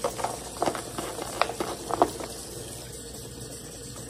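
Meat bones being handled and rinsed by hand in a kitchen sink: a quick run of short knocks and splashes in the first two seconds, over a faint steady hiss.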